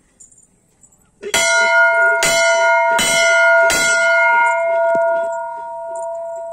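Brass temple bell rung by hand: four strikes a little under a second apart, each leaving a clear ringing tone that hangs on and slowly fades.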